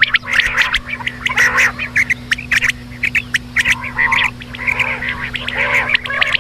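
Quail calling rapidly and continuously: a busy mix of sharp clicks, short high call notes and lower squawking notes, over a steady low hum.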